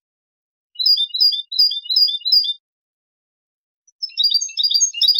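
European goldfinch singing fantasy-type (fantasía) song phrases: a run of five quick repeated high two-note figures, a pause of more than a second, then a denser run of rapid high notes near the end.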